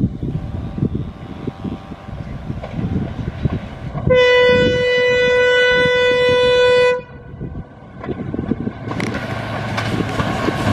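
Indian Railways diesel locomotive air horn sounding one steady note for about three seconds over the rumble of the approaching train. Near the end the rumble of the oncoming diesel locomotives grows louder.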